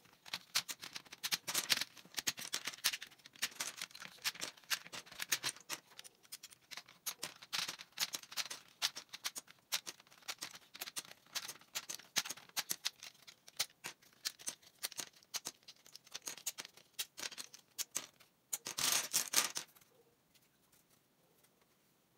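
Plastic keycaps being pulled off a keyboard plate by hand and dropped onto a pile: a fast, irregular clatter of small plastic clicks, ending in a denser rattle near the end before it stops.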